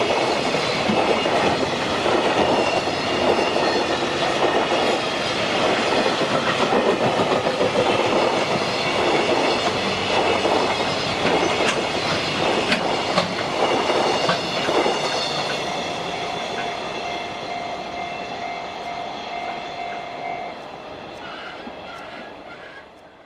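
Freight train wagons rolling past at speed, clattering rhythmically over the rail joints. The sound fades gradually as the end of the train moves away, with a steady tone ringing out for a few seconds near the end.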